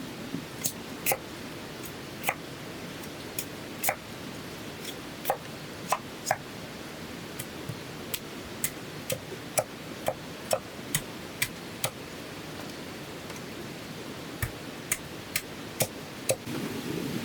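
Irregular sharp taps and clicks, roughly one to two a second, some louder than others, over a steady hiss.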